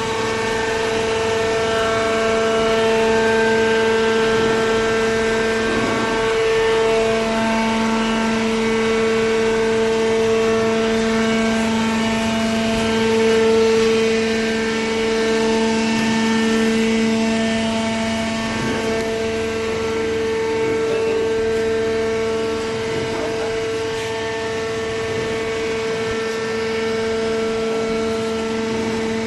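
Hydraulic power unit of a vertical cardboard baler running steadily, a loud continuous motor-and-pump hum with a clear pitch that shifts slightly in strength as the press works.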